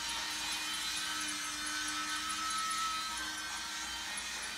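Toy train running around its track: a steady whir of its motor and wheels.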